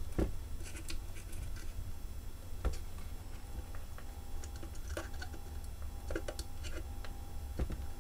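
Scattered light clicks and taps as small parts of a portable speaker are handled and fitted back together, over a low steady background rumble.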